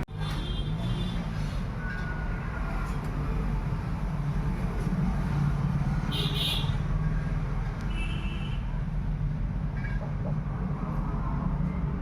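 Steady low background rumble, with a few faint, brief high-pitched chirps about six and eight seconds in.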